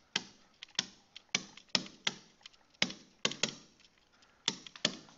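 Digital pen stylus tapping and clicking against a tablet surface while handwriting letters, in irregular sharp clicks about three a second.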